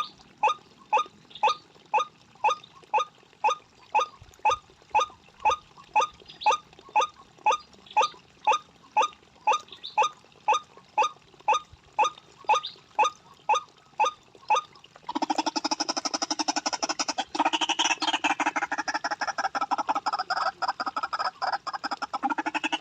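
White-breasted waterhen calling: short, identical calls repeated evenly about twice a second, then from about fifteen seconds in a louder, dense bout of rapid calling without pause.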